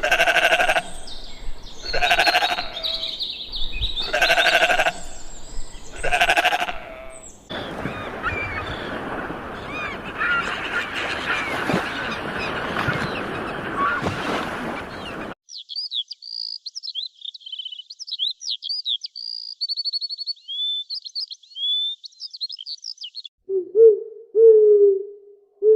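A run of animal calls: four bleats about two seconds apart, then a dense, noisy chorus with scattered chirps, then a bird's high, quick chirping song. Near the end come low hoots of an owl.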